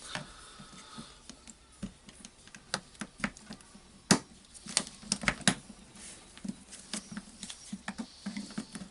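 Flat screwdriver prying the rubber cap off the tool holder of a Makita HR4010C SDS-Max rotary hammer: irregular small clicks, taps and scrapes, the sharpest about four seconds in.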